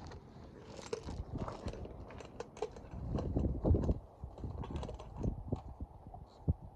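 Irregular clicks and knocks of hand tools on a BMX bike's metal parts as it is taken apart, busiest about three seconds in.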